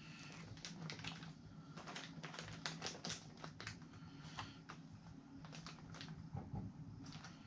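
Small, faint, irregular clicks and taps of plastic fishing-tackle packages being handled and set down on a desk.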